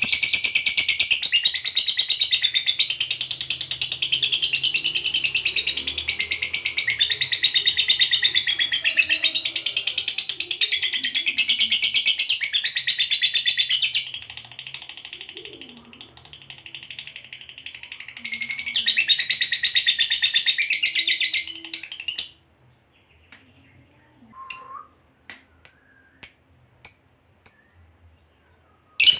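Fischer's lovebird giving a long 'ngekek': an unbroken, very rapid, high-pitched chattering trill that wavers in pitch. It lasts about twenty-two seconds, grows softer for a few seconds past the middle, then stops suddenly. A few short single chirps follow near the end.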